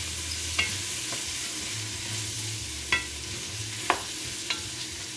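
Baby potatoes and vegetables sizzling in butter and oil in a metal pot while a wooden spoon stirs them, knocking against the pot a few times.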